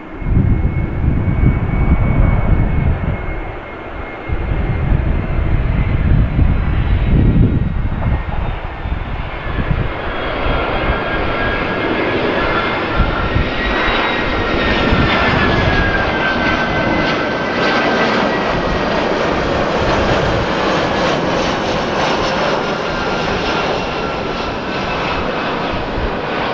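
Airbus A320-214 airliner's CFM56 turbofan engines on final approach, passing overhead: a steady jet roar with a high whine. In the second half the whine grows stronger and falls in pitch as the aircraft goes over.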